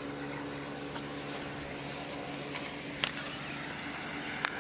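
Steady outdoor background noise with a low hum and a faint high steady tone. There are light handling clicks about three seconds in and twice near the end.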